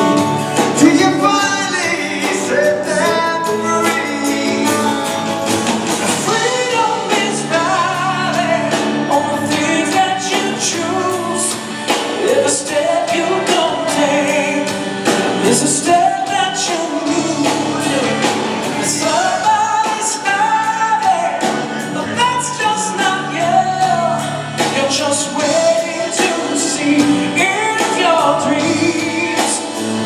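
Live band playing a song, with a man singing into a microphone over drums and cymbals.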